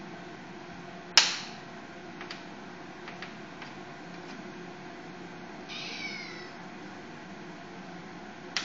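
A cat meows once past the middle, a short high call falling in pitch. A sharp clack about a second in is the loudest sound, with a few lighter clicks and taps around it.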